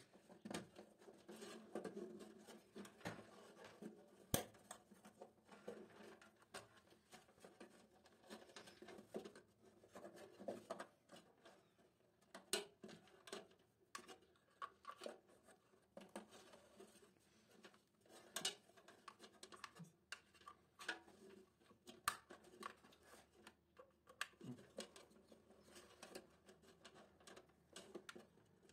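Faint handling sounds of stiff insulated wires being routed and fitted in a steel electrical panel: soft rustling with scattered small clicks and taps throughout.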